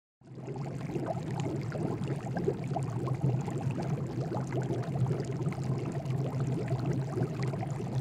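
Sound effect of running, bubbling water: a dense trickle of small splashes and crackles over a low steady hum.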